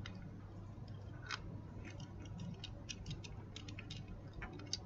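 Faint, irregular small clicks and ticks of a 1.2 hex hand driver turning a cover screw into a dental implant set in a plastic jaw model, with a low steady hum beneath.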